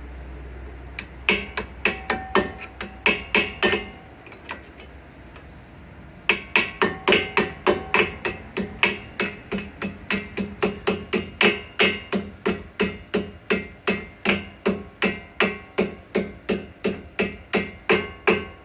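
A hammer tapping a brake pad retaining pin into a four-piston front brake caliper, metal ringing on each strike: about nine quick taps, a pause of about two seconds, then steady taps about three a second until near the end. The pin is being driven against the spring clip, which pushes it upward and out of line with its locating hole.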